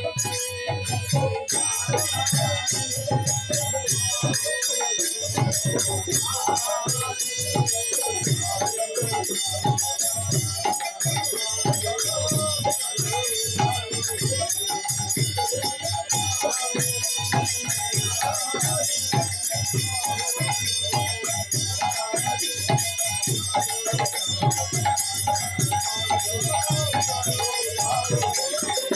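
Live folk music: laced two-headed hand drums beating a steady, fast rhythm, with a constant jingle of small hand cymbals and a harmonium playing held notes.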